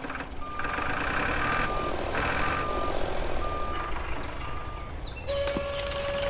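Reversing alarm beeping about once a second, five beeps, over a steady rushing noise as the toy tractor backs up. About five seconds in the beeps stop and a steady, lower tone starts.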